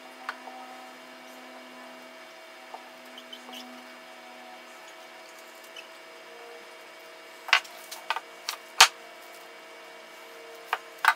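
Wooden strips handled and laid together on a workbench: a few light taps early on, then a cluster of sharp knocks about seven to nine seconds in and two more near the end, over a steady faint hum.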